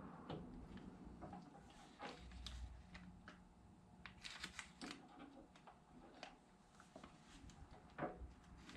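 Faint, scattered clicks and taps of small metal parts being handled and set together: rocker arm, washers and needle bearing being positioned for pressing.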